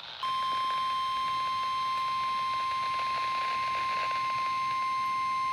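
Weather radio warning alarm tone: one steady high beep near 1,050 Hz that comes on just after the start and holds unbroken, over faint receiver static. It signals that an Environment Canada severe thunderstorm warning is about to be read.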